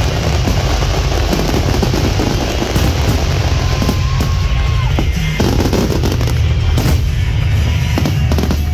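Aerial fireworks shells bursting many at a time in a dense barrage of rapid crackling and booms, thinning somewhat about five seconds in.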